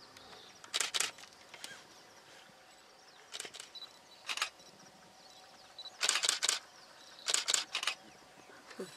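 Camera shutter clicks in quick bursts of two or three, five bursts spread over several seconds.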